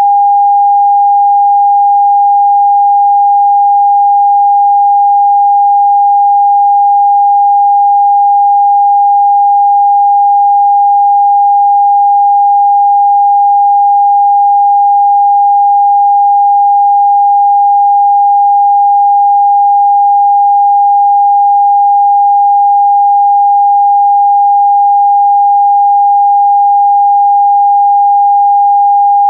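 Television test-card tone: a single pure sine tone held at one unchanging pitch and level.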